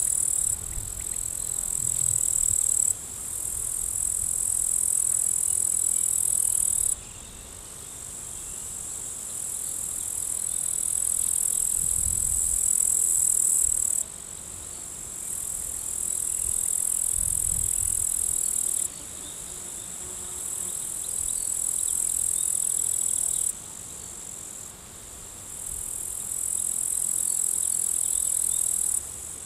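High-pitched insect chorus, a shrill steady buzz that drops off abruptly several times and swells back up each time.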